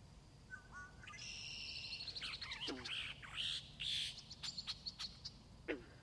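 Pond-side reed bed ambience: birds sing a busy run of trills and chirps for about four seconds, with frogs calling among them. Two calls drop sharply in pitch, a little under three seconds in and again near the end, over a low steady background rumble.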